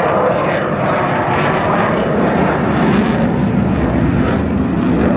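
Loud, steady jet noise from an RAF Eurofighter Typhoon's twin EJ200 turbofan engines as the fighter flies its display.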